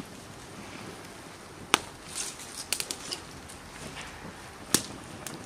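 Wood fire crackling with scattered sharp pops, two loud snaps coming just under two seconds in and near the end.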